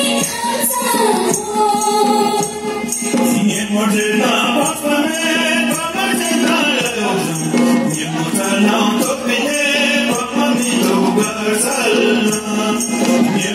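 Ladakhi folk song accompanying a dance: voices singing together over a steady, evenly spaced percussion beat.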